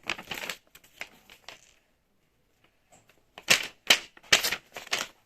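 Sheets of paper being handled: a run of short rustles and taps, a pause of about a second, then several loud, quick paper rustles about half a second apart.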